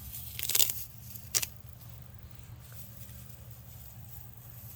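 A short rustle about half a second in, then a single sharp click, over a steady low hum.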